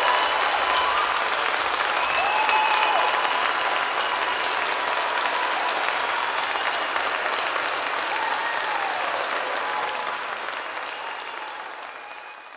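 Theatre audience applauding after a choir performance, dying away near the end.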